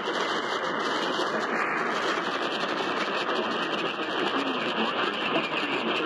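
Steady hiss of static from an AM radio receiver's speaker, tuned to 1470 kHz medium wave, with no programme or voice coming through.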